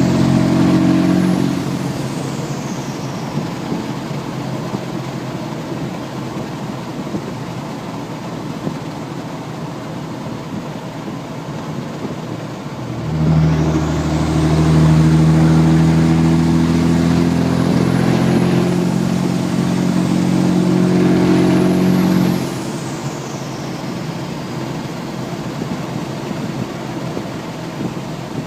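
Straight-piped 2007 Dodge 5.9 L Cummins inline-six turbo-diesel running down the road with an open aFe intake. The turbo whistles high, rising and falling in the first two seconds or so; about halfway through the engine goes under load for about nine seconds, louder, with the whistle climbing high, then the throttle is let off and both drop back.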